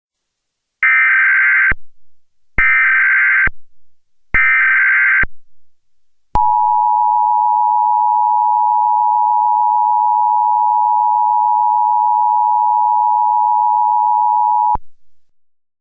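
Emergency Alert System header: three short bursts of SAME digital data, about a second each with brief gaps between them. These are followed by the two-tone EAS attention signal, held steady for about eight seconds and then cut off sharply.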